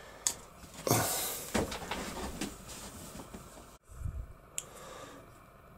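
Fingers handling a small plastic action figure's torso and its soft plastic slip-over breastplate: light rubbing with scattered small clicks and soft knocks of plastic.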